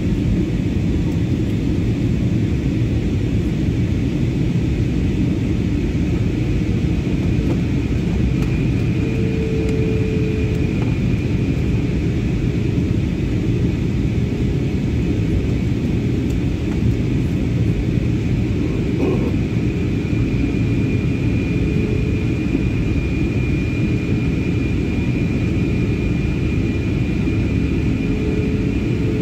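Steady cabin noise of a jet airliner in flight: the low, even roar of the engines and rushing air heard inside the cabin, with a faint steady whine over it.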